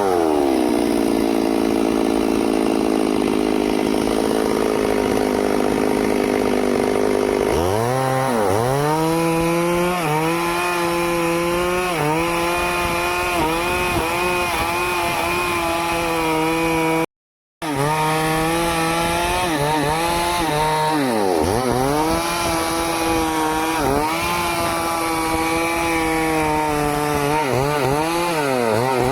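Stihl two-stroke chainsaw running: its pitch falls at first and holds lower for several seconds, then it revs up about eight seconds in and runs at high speed. Under high revs the pitch dips briefly again and again as it cuts into the tree. The sound cuts out completely for about half a second past the middle.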